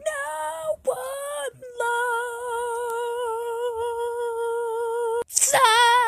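A child's voice singing wordless notes: a few short notes, then one long held note with a slight wobble for about three seconds, then a louder, fast-warbling note near the end.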